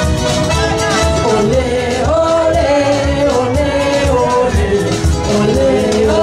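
Dance music played loud, a singing voice carrying the melody over a steady bass beat.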